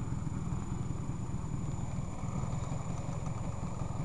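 Classic scooter's small two-stroke engine idling steadily, a rapid, even low pulsing.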